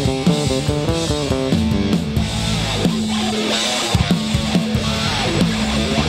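Live rock band playing: an electric guitar riff of quick stepping notes over bass and drums.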